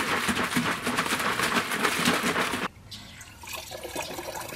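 Water sloshing inside a half-filled plastic jug being shaken hard, a rapid run of liquid splashes. The sound cuts off suddenly about two and a half seconds in, leaving a much quieter background.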